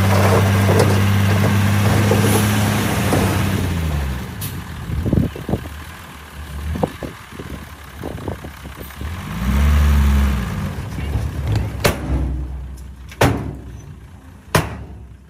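Dump truck engine running steadily at raised revs while its hydraulic hoist tips the bed and soil pours out; the engine note drops about three seconds in. Scattered knocks of falling earth follow, with a brief rise and fall of the engine around the middle and several sharp bangs near the end.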